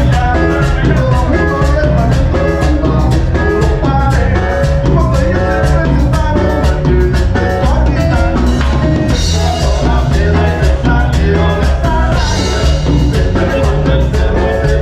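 Live cumbia band playing, with a steady percussion beat and heavy bass, picked up by the camera's own microphone.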